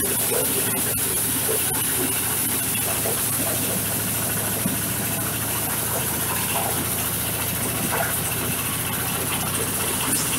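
Engine-driven corn sheller for husked ears running steadily under load: a dense, even mechanical hum and churn with small irregular ticks as whole ears are fed through and threshed.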